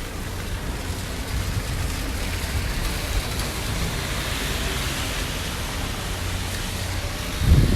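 Steady outdoor noise: an even hiss with a fluttering low rumble under it, the hiss swelling a little around the middle, and a short low thump near the end.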